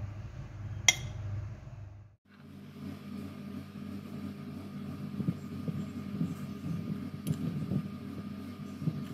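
A metal spoon clinks once against a glass bowl about a second in, over a steady background hum. After a sudden break near two seconds, the hum continues with faint scraping and a light tap as powdered sugar is spooned.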